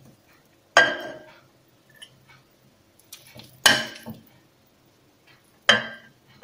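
A metal spoon knocking against a glazed ceramic pot while stirring cooked pilaf. There are three sharp clinks, each ringing briefly: about a second in, about midway, and near the end.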